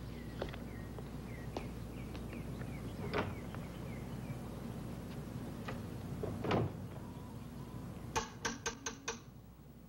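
Five quick knocks on a front door, about eight seconds in.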